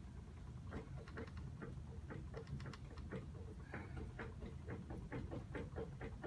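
Computer keyboard being typed on: soft, slightly irregular clicks, several a second, over a low steady hum.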